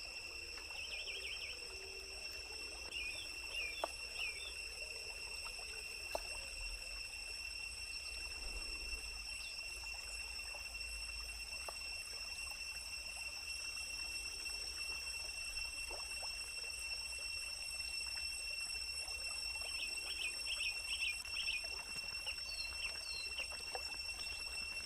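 Outdoor ambience: a steady high-pitched insect drone, with bursts of quick bird chirps near the start and again about twenty seconds in, and a few light knocks.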